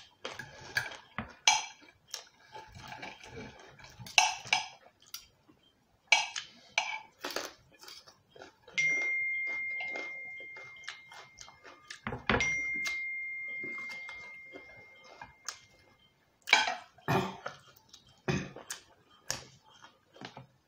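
Knife and fork clinking and scraping on ceramic plates with chewing, in short irregular clicks. Twice, about 9 and 12 seconds in, a clear bell-like ring sounds and dies away slowly over a few seconds.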